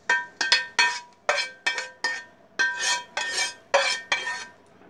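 Spatula scraping and knocking cooked potatoes out of a frying pan onto a plate: about a dozen irregular metal-on-dish clinks and knocks, each with a short ringing tone.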